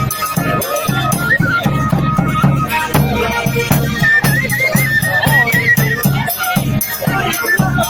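Instrumental Hutsul folk dance music: a high, ornamented melody over a steady, rhythmic bass beat.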